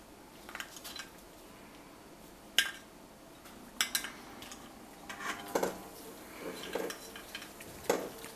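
Metal clinks and taps from a gas-mask filter canister with a threaded metal neck being handled, a scattered series of sharp clicks, the loudest about two and a half seconds in and again near the end.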